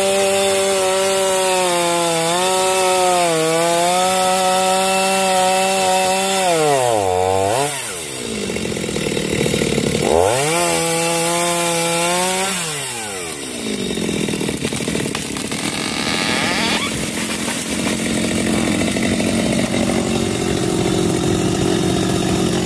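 Two-stroke Stihl chainsaw cutting through a ketapang tree trunk at full throttle, its engine note dipping briefly under load. About seven seconds in and again near the middle it drops off and revs back up. In the second half the steady engine tone gives way to a noisier rush as the cut finishes and the tree comes down.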